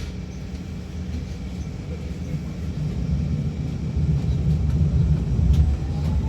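City bus running, heard from inside the cabin: a steady low engine and road rumble that grows louder about halfway through as the bus picks up speed.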